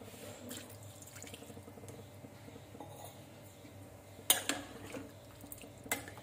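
Steel ladle stirring watery drumstick and potato curry in a metal pan, liquid sloshing faintly, with a few sharp clinks of the ladle against the pan about four seconds in and again near the end.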